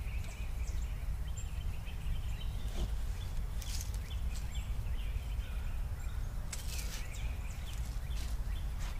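Outdoor garden ambience with a steady low rumble and birds calling, and twice a short scrape as a hand trowel digs into loose soil, once near the middle and again a few seconds later.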